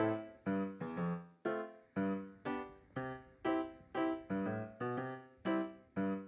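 Background music: a slow keyboard tune of single notes, about two a second, each starting sharply and dying away.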